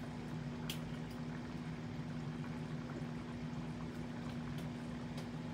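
A steady low hum over even background hiss, with a few faint clicks, one sharper about a second in.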